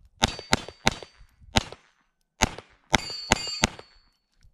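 Browning Buck Mark .22 LR semi-automatic pistol firing eight shots at an uneven pace over about three and a half seconds. Hits on steel targets ring with a high clang, loudest after the last three quick shots.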